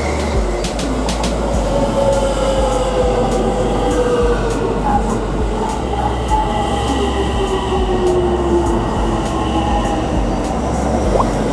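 Electric commuter trains running past along a station platform, with steady rumbling and wheel clicks over the rail joints in the first second or so. A motor whine slides down in pitch twice.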